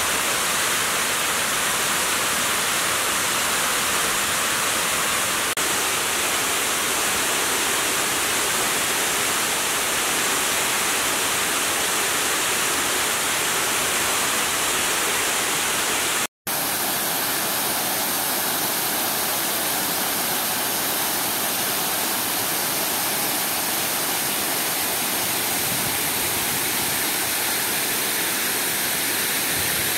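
Water spilling over the crest of the Upper Manair Dam and cascading down its stone-faced wall: a loud, steady rush of falling water. It cuts out for a moment about sixteen seconds in, then goes on with a little less low rumble.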